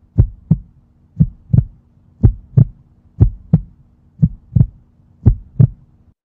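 Heartbeat sound effect: paired lub-dub thumps about once a second, six beats in all, over a faint steady hum. It stops shortly before the end.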